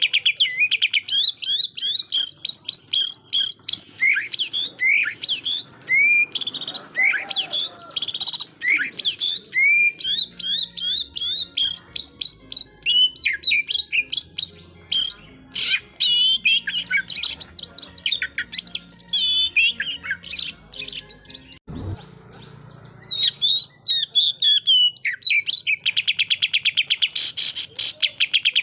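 Oriental magpie-robin singing a loud, varied song of slurred whistles and chatter. It opens and, near the end, closes with rapid-fire strings of repeated notes: the 'tembakan' burst that keepers prize. A low thump about three-quarters of the way in is followed by a brief pause in the song.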